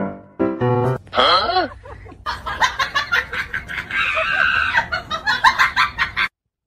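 Playful background music with comic sound effects layered over it, cutting off abruptly near the end.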